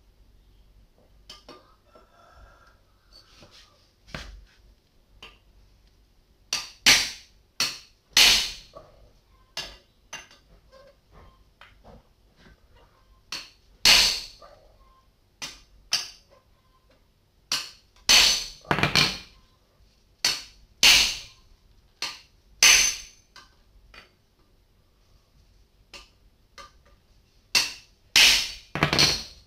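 Hammer blows on a steel bar held in a bench vise, bending its end into a tire-lever hook. Sharp metallic strikes with a short ring, light taps at first, then heavier blows in irregular runs of two or three.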